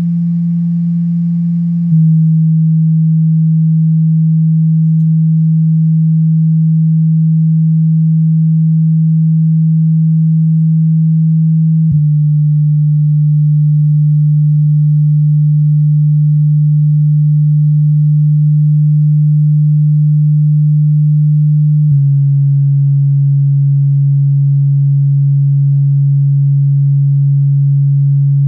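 MTX car subwoofer playing a loud, steady low sine test tone that steps down in pitch three times, roughly every ten seconds.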